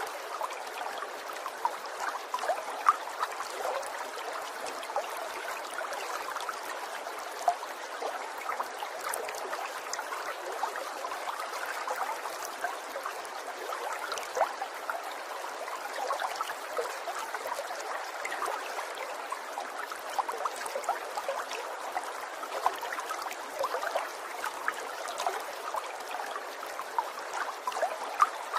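Water trickling steadily, with many small splashes and drips throughout.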